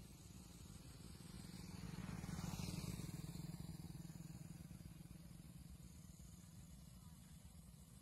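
A motor vehicle passing: a low engine hum with road hiss swells to its loudest about two and a half seconds in, then fades slowly.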